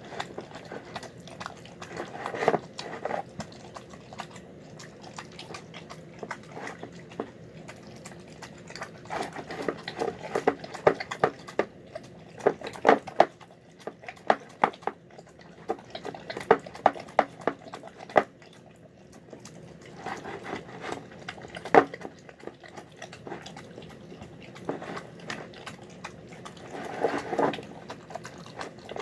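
A dog eating a meal of chicken, rice and vegetables: wet chewing and smacking in bursts of quick clicks, with quieter pauses between.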